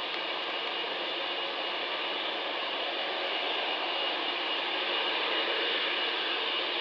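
Boeing 747-400's four jet engines at take-off power, heard from a distance as a steady rushing roar with a thin high tone, growing a little louder toward the end.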